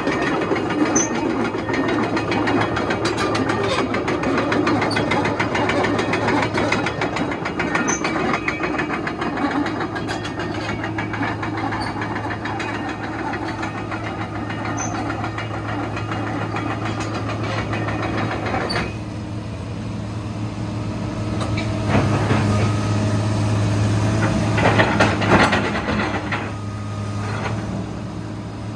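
Komatsu PC230-8 excavator's diesel engine running, with a steady low hum underneath. The busier engine noise drops away suddenly about two-thirds through, and it grows louder again for a few seconds near the end.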